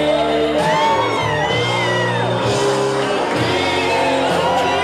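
Loud dance music with a steady bass line, with people singing along and whooping over it.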